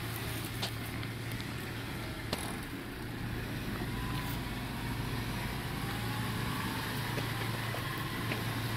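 Jeep Wrangler Rubicon's engine running steadily at low revs as it crawls slowly through a deep rutted washout, with a few light clicks along the way.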